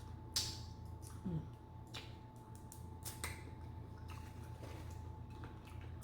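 Close-miked eating sounds: scattered wet mouth clicks and smacks while chewing seafood, over a faint steady hum.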